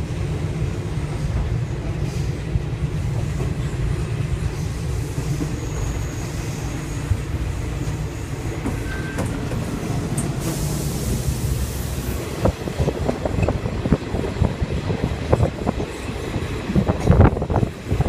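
Train running on the rails, heard from on board: a steady low rumble, with wheels clicking over rail joints from about two-thirds through, the clicks growing louder near the end.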